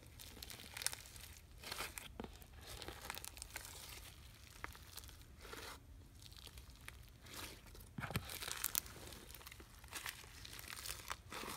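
Hand squishing and kneading foam-bead slime (floam), the beads crackling and crunching in irregular bursts.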